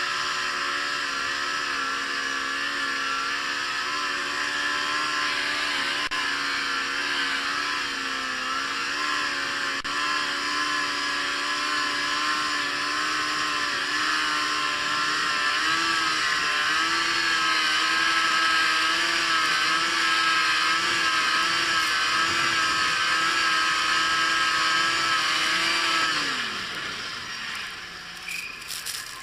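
Yamaha Apex RTX snowmobile's four-stroke four-cylinder engine running under steady throttle while cruising through powder snow, its note holding level with small wavers. Near the end the throttle comes off and the engine note falls away quickly to a lower, quieter drone.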